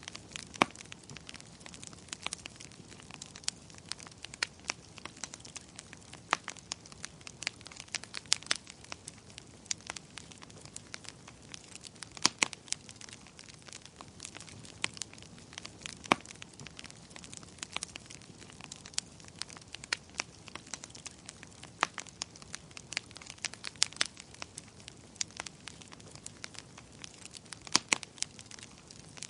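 Wood fire crackling: frequent sharp, irregular pops and snaps over a soft steady hiss, with a few louder pops scattered through.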